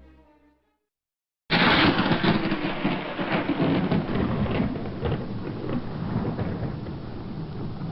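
Music fades out, and after a second of silence a thunderclap breaks suddenly, then rolls on over a steady hiss of heavy rain that slowly eases.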